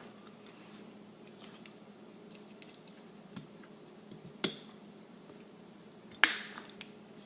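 Small metal pistol parts clicking and clacking as they are handled during a Glock disassembly, with two sharper knocks about four and a half and six seconds in, the second the loudest with a brief ring after it.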